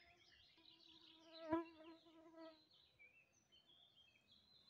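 A flying insect buzzing close past, swelling to its loudest about one and a half seconds in and gone by about two and a half seconds, over faint high bird chirps.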